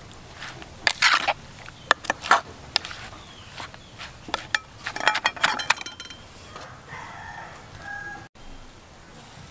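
A metal spoon and wooden pestle clinking and scraping against a clay mortar as shredded green papaya salad is tossed, in short scattered clacks. Near the end a rooster crows in the background, quieter than the clacks.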